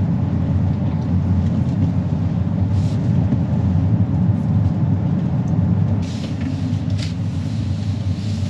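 Steady low road and tyre rumble of a Tesla electric car driving along a mountain road, with a couple of faint short knocks about six and seven seconds in.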